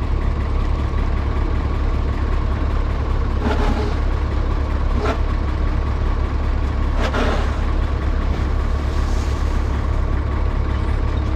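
Diesel engine of farm machinery running steadily at a constant speed, with three brief hissing noises about three and a half, five and seven seconds in.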